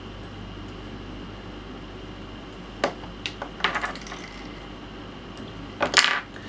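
A few short, sharp clicks and light metallic taps from small fly-tying tools and hook hardware being handled at the vise as the thread is tied off and trimmed, over a steady low hum. There is one click about halfway in, a quick cluster a moment later, and a louder pair near the end.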